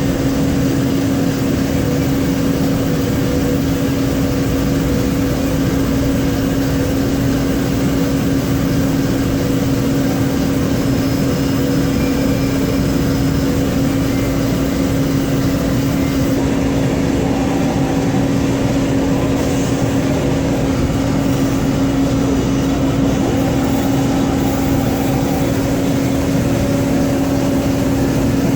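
Mori Seiki SL4 CNC lathe running while cutting parts: a steady machine hum with a constant droning tone, and a few brief, faint higher tones here and there.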